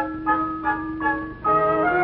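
Background music: short repeated high notes over a held low note, changing to fuller sustained chords about one and a half seconds in.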